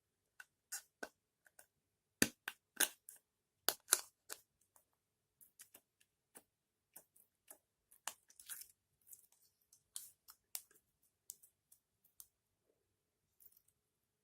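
Store-bought slime being kneaded and mixed by hand, making irregular sharp clicks and pops, with the loudest run about two to four seconds in.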